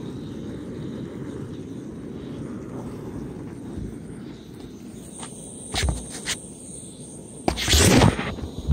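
Phone camera handled and set down on a metal-topped camp table: a few sharp clicks a little past the middle, then a loud rustle and knock near the end. A steady low rumble runs underneath.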